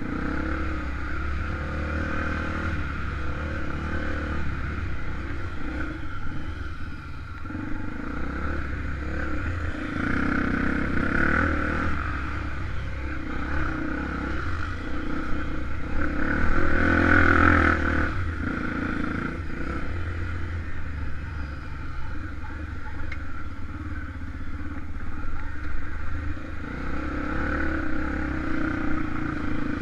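Honda XR250 Tornado single-cylinder four-stroke motorcycle engine running while riding, with some clatter, rising to its loudest about halfway through before easing back.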